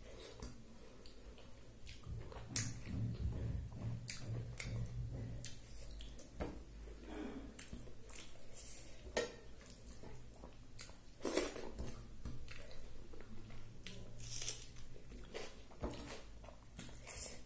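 Chewing and mouth sounds of someone eating rice and vegetable curry by hand, with irregular wet clicks and smacks as fingers mix the rice on the plate.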